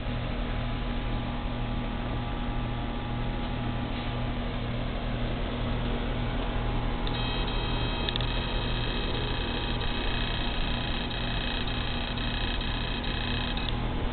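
Steady electrical hum and hiss. A high, steady whine of several close tones joins about halfway through and stops just before the end.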